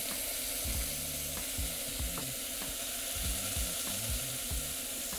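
A single test fry sizzling in a pot of hot deep-frying fat: a steady hiss with a few small pops, showing the fat is hot enough to fry.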